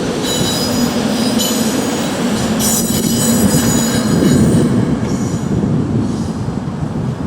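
A train rolling through a grade crossing: a steady heavy rumble of wheels on rail, with high-pitched wheel squeal coming and going over the first few seconds.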